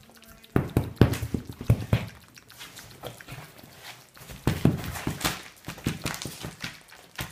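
A Dalmatian rolling and scrabbling on a leather sofa: irregular scuffs, rubs and knocks in two busy spells, the first starting about half a second in and the second about four and a half seconds in.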